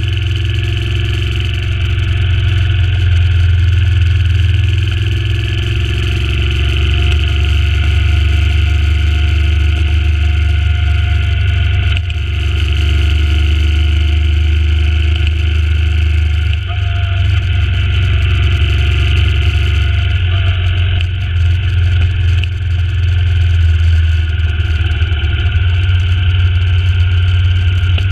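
Suzuki Intruder C800's 805 cc V-twin engine running steadily as the motorcycle is ridden along a road. The engine note shifts a few times, notably about halfway through and again later on.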